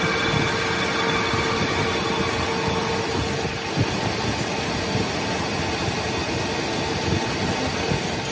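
Flywheel grinding machine running: a motor-driven cup grinding stone grinding the face of a spinning truck flywheel, a steady mechanical grinding noise with a steady whine over it.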